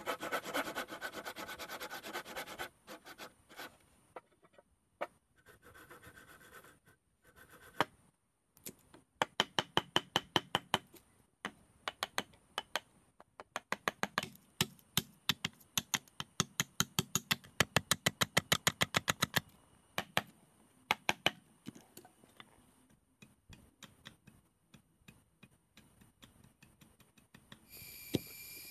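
Handsaw cutting through a timber board in quick strokes for the first few seconds, then a hammer striking a wood chisel in steady runs of about three blows a second as a mortise is cut in a post. A steady high buzz starts near the end.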